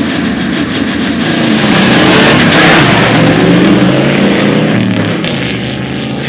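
Two bakkies launching side by side, a Toyota Land Cruiser 70-series single cab among them, with engines revving hard under full acceleration. The sound is loudest about two to three seconds in and fades as they pull away, with the engine note changing pitch.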